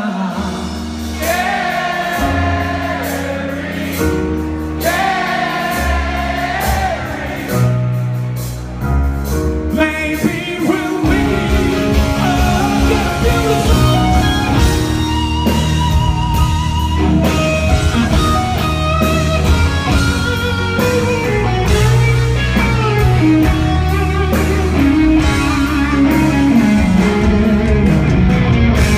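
Live rock band playing a ballad: a male lead singer holds long sung notes over keyboards, then about eleven seconds in the bass and drums come in and the full band plays on with electric guitar.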